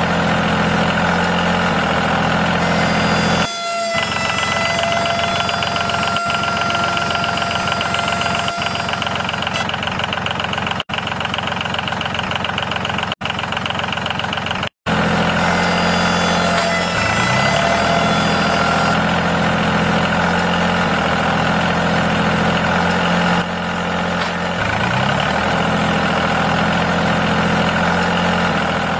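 A steady engine-like drone running throughout, cutting out sharply for an instant several times, with a couple of short rises in pitch.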